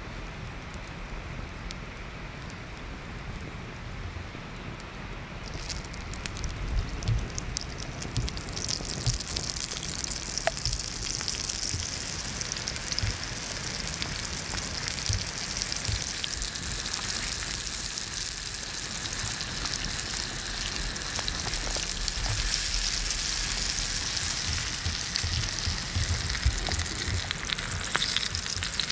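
Cured pork neck slices and pineapple rounds sizzling in hot oil in a cast-iron pan over a campfire. The sizzle is fainter at first, swells about five seconds in, and holds steady after that, with scattered small pops and crackles.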